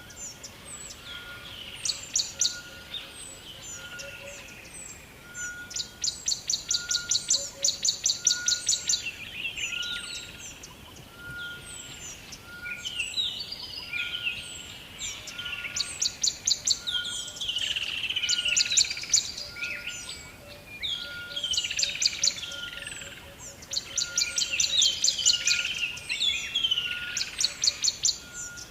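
Rainforest bird chorus: several birds calling at once, with fast high trills, downward-sliding whistles and a short note repeated about once a second, over a light background hiss.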